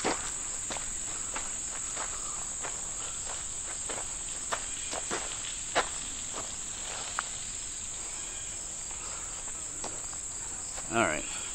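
Steady high-pitched drone of an insect chorus in summer woodland, with soft footsteps at a walking pace on a gravel and grass path.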